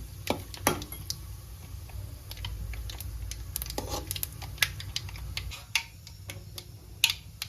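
Scattered light clicks and taps from a kadai on the stove, where a tempering of mustard seeds, cumin and dry red chillies is cooking in hot oil, over a low steady rumble that fades about two-thirds of the way through.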